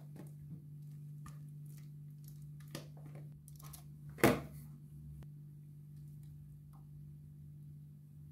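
Kitchen handling sounds: soft scrapes and light taps as whipped cream is scraped from a plastic bowl into a cake tin and the layers are assembled, with one sharp knock about four seconds in. A steady low hum lies underneath.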